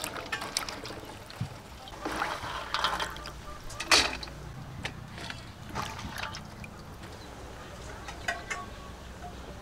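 Water sloshing and splashing in a metal basin as vegetables are washed by hand, in irregular bursts with a sharper splash about four seconds in.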